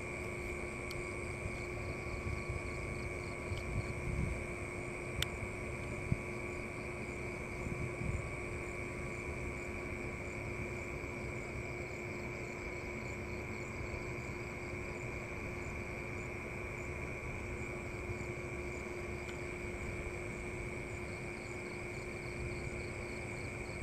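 Steady chorus of night insects such as crickets, chirping in even repeated pulses over a constant high drone. Under it runs a low rumble, with a few soft bumps in the first seconds and one faint click about five seconds in.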